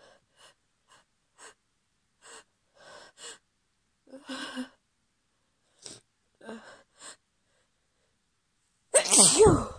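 A woman's short, shaky breaths and sniffs as a sneeze brought on by chhikni snuff builds, then one loud, voiced sneeze about nine seconds in.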